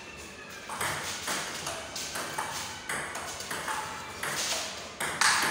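Table tennis rally: the plastic ball clicking off the paddles and bouncing on the table, about two sharp hits a second, beginning under a second in and loudest near the end.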